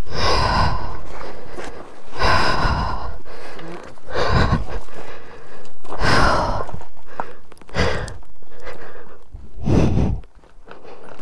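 Heavy breathing close to the microphone: about six loud, noisy breaths in and out at an even pace, the panting of someone out of breath.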